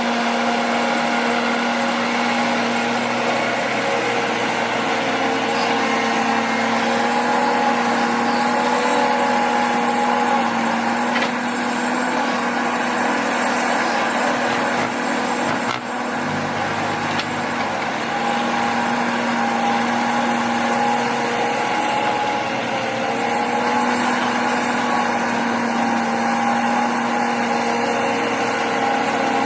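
Heavy earthmoving machinery's diesel engine running steadily with a constant hum, and a single brief knock about halfway through.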